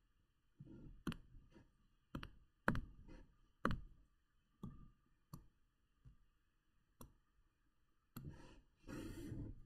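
Faint, sharp clicks, about one a second, from a computer pointing device as a shape is drawn on screen, some followed by a soft low thud. A short breathy rustle comes near the end.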